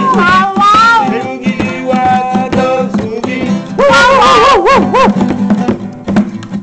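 Steel-string acoustic guitar strummed in a driving boogie rhythm, with a man's wordless sung notes that slide up and down in pitch, once at the start and again about four seconds in.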